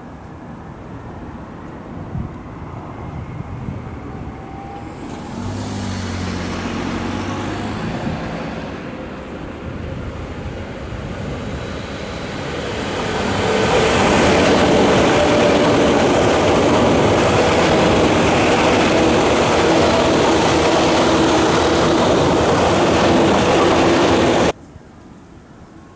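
Tokyu 8500 series electric train running past, growing louder over several seconds until its motors and wheels are very loud from about halfway through, then cutting off suddenly near the end.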